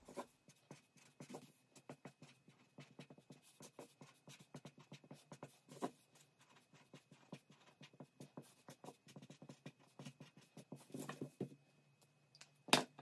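Marker pen writing on paper: a run of short, scratchy strokes, with one sharper knock near the end.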